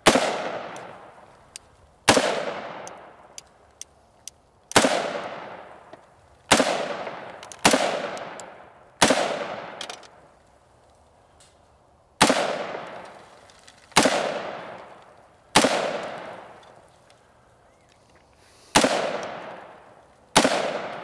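AR-15 rifle firing eleven single shots at a slow, uneven pace, one every one to three seconds. Each sharp crack echoes and dies away over a second or so.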